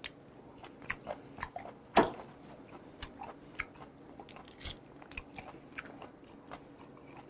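Close-miked eating: soft wet clicks, crunches and chewing as steamed gooseneck barnacles are peeled by hand and eaten, with one louder click about two seconds in.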